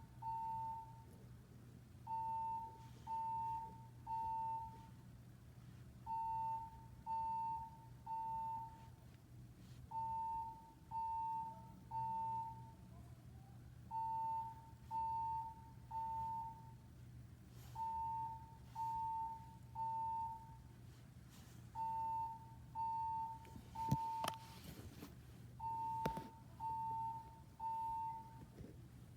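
Fire alarm beeping in the temporal-three evacuation pattern: three short beeps on one steady mid-pitched tone, then a pause, repeating about every four seconds.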